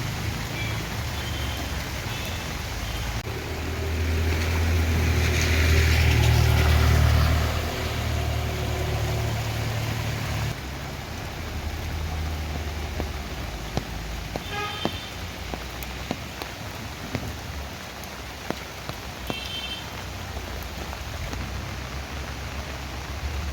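Steady rain falling, with a motor vehicle's engine rumbling past, rising to its loudest about six seconds in and cutting off at about ten seconds. Scattered sharp drip ticks follow, with two brief high chirps later on.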